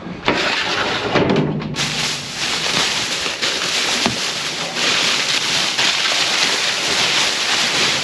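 Black plastic garbage bags rustling and crinkling as gloved hands push through them inside a dumpster: a dense crackly noise that starts abruptly just after the start and keeps on steadily.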